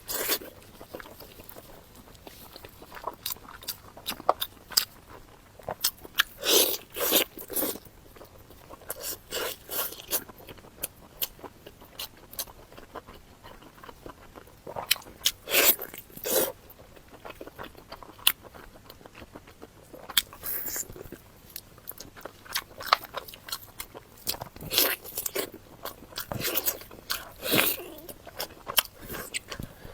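Close-miked eating sounds: a person biting and chewing food, in irregular clusters of short clicks with pauses between.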